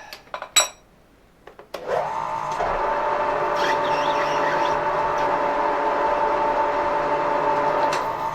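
A few clicks and a ringing metal clink, then a lathe's electric motor starts about two seconds in and runs steadily with a steady whine.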